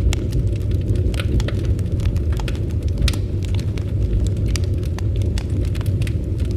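Campfire burning: a steady low rumble of the flames with frequent, irregular sharp crackles and pops from the burning wood.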